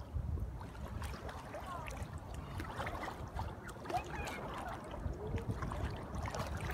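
Sea water splashing and sloshing close to the microphone as a swimmer strokes through small waves, over a steady low rumble.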